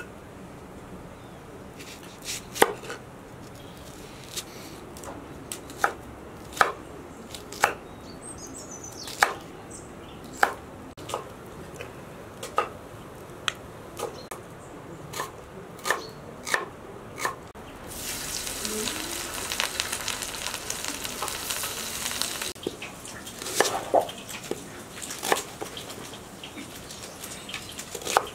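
Wood fire crackling in a barrel stove, with sharp single pops about once a second. Past the middle, a steady hiss lasts about four seconds.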